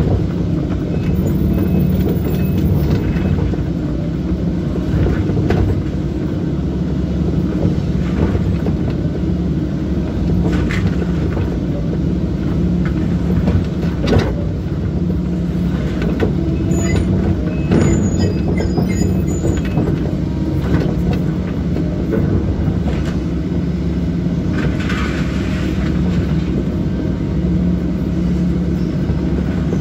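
Link-Belt 160 excavator's diesel engine running steadily while it tears down a wooden house. Scattered cracks and knocks of breaking lumber and falling debris come through, most of them in the middle stretch.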